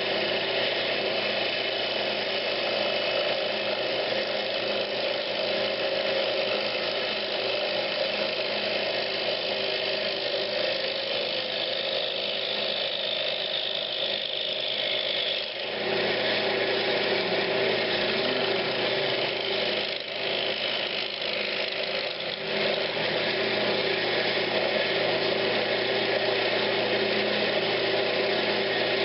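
Wood lathe running steadily with a turning tool cutting and scraping a pine cabinet knob; the sound dips briefly about halfway through and twice more a few seconds later.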